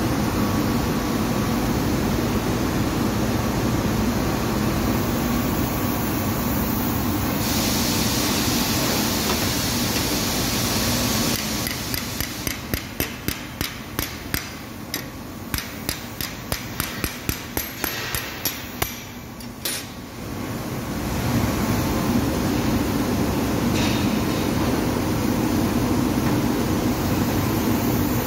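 CNC fiber laser cutting machine running over steel plate: a steady rushing noise, with a brighter hiss for a few seconds about a third of the way in. Midway the rushing eases and a run of sharp metallic knocks comes, a few a second for about eight seconds, before the steady noise returns.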